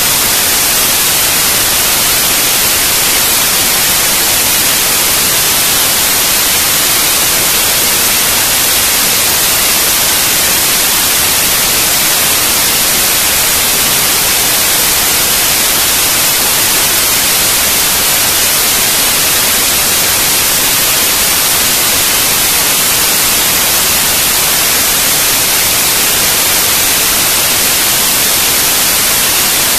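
Loud, steady white-noise hiss like static, unchanging throughout and strongest in the high end, with no other sound over it.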